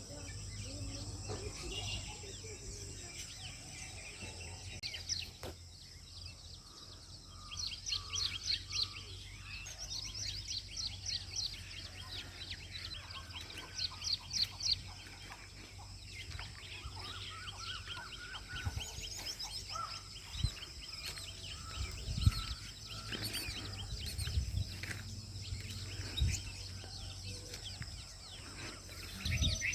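Small birds chirping, in quick repeated runs of high notes and trills, over a steady high hum. A few low thumps come in the second half.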